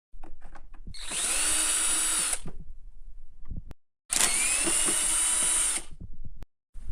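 Electric screwdriver or drill running in two bursts of about a second and a half each, each one winding up in pitch and then running steady, with a few light clicks before the first: the screws are being driven out to take apart the casing of a Karcher K 5.20 pressure washer.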